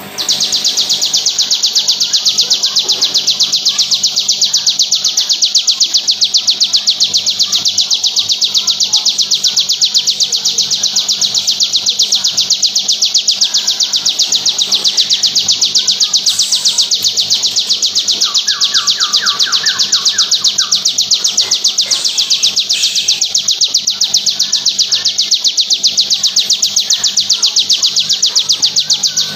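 Bar-winged prinia (ciblek) singing its 'bren': a loud, high, very rapid trill that starts abruptly and runs on without a pause.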